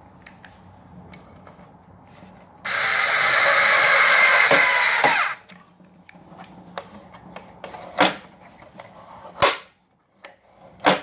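Power drill running for about two and a half seconds and winding down as it stops, followed by three sharp clacks.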